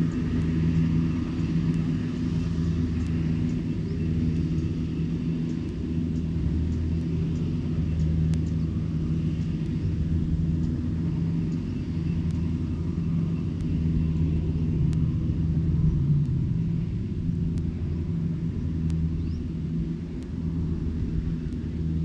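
Kubota rice combine harvester's diesel engine running steadily, a low even hum with little change in speed.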